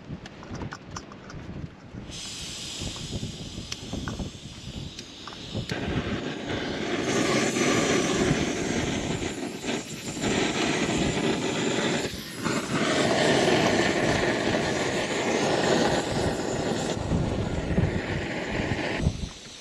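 Small gas canister stove burner hissing steadily after being lit about two seconds in, then cutting off abruptly near the end as the wind blows the flame out.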